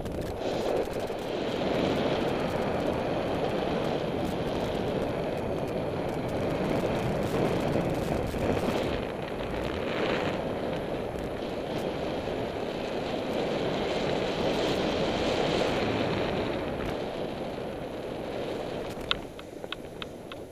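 Wind rushing over a helmet-mounted camera's microphone as a paraglider flies: a steady rush of noise. Near the end it eases off and a few sharp knocks come as the pilot touches down on the grass.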